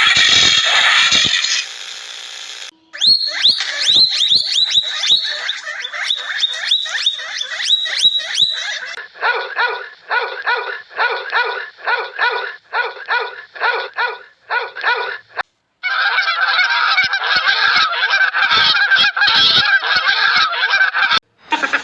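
A string of loud animal calls in separate cut-together segments: a run of short calls, each rising quickly in pitch, then evenly spaced honk-like calls at about two a second, then a dense overlapping chorus of calls.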